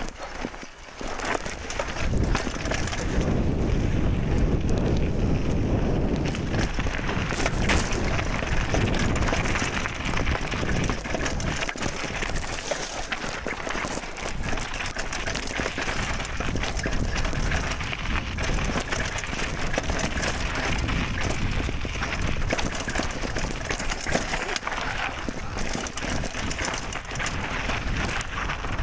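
Mountain bike riding down a dirt and rock trail, heard from the handlebars: a steady rush of tyre and wind noise with constant rattling and clicking, picking up about two seconds in.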